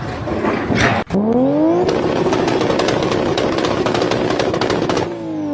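An engine or motor revving up quickly, running hard with a dense rattle of rapid clicks, then winding down in pitch near the end.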